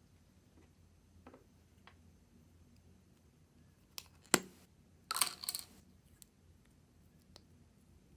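Putty slime being pressed and pulled by hand, making scattered small clicks, a sharp pop a little after four seconds in and a short run of crackling pops about five seconds in.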